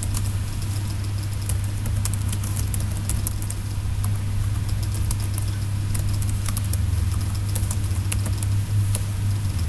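Computer keyboard typing: irregular, quick keystroke clicks over a steady low hum.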